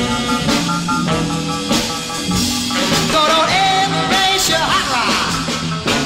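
1950s rock and roll music: a band playing with some singing, in a gap between the lead vocal lines.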